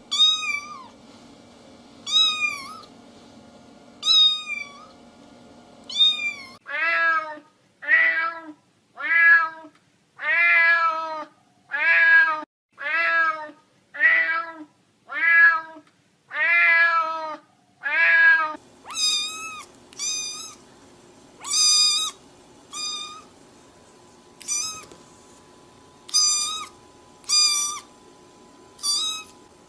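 Cat meowing over and over. High-pitched meows come about every two seconds, then a lower-pitched meow about once a second from about six seconds in, and high-pitched meows again, a little quicker, from about eighteen seconds in.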